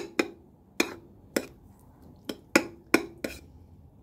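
Metal spoon clinking against the side of a bowl while stirring a thick curd pachadi: about seven short, sharp clinks at an uneven pace.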